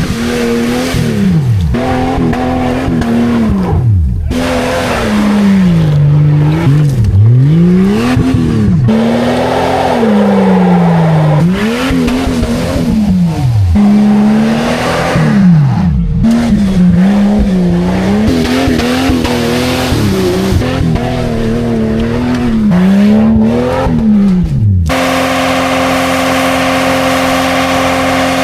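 An old Jeep Cherokee's engine is revved hard again and again, its pitch repeatedly climbing and dropping, in a run of short cut-together clips. Near the end it holds a steady high note.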